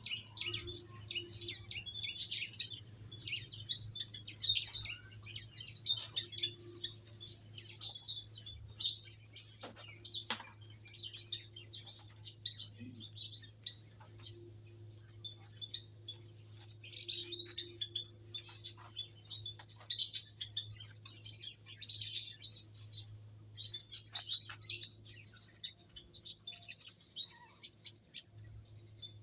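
Small aviary birds chirping and tweeting, many short high calls following one another without a break, over a steady low hum.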